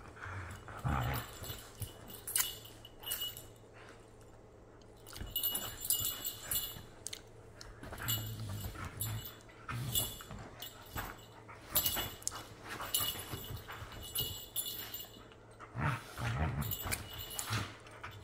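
Two huskies play-fighting, with intermittent low play growls and whines in irregular bouts, mixed with scuffling and rustling as they wrestle on couch cushions.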